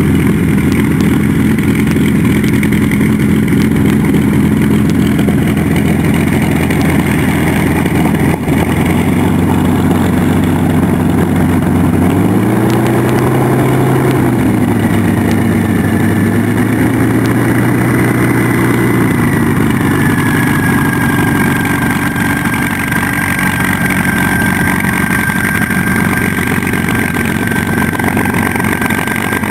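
Messerschmitt Bf 109E's Daimler-Benz inverted V12 running at taxi power. About twelve seconds in, a burst of throttle lifts the pitch for several seconds before it settles back, and a thin high whine joins from about halfway.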